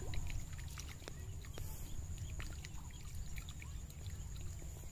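Outdoor water ambience: a steady low rumble with many scattered light ticks and small water sounds, over a continuous high-pitched buzz.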